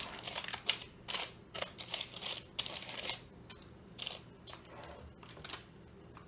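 Spoon spreading strawberry jelly over a pressed oat crust in a parchment-lined baking dish: a run of short, irregular scraping strokes, several a second, with the parchment paper rustling.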